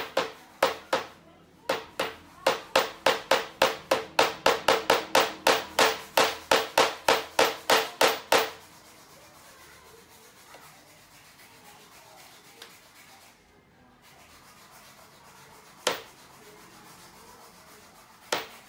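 Rapid, even knocking on a flat-pack computer table part, about three strikes a second, each with a short ring, as the part is tapped into place. It stops about eight and a half seconds in, and two single knocks follow near the end.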